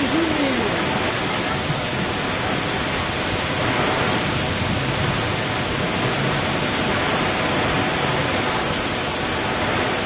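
Heavy tropical rainstorm with strong wind: a dense, steady rush of downpour and gusts.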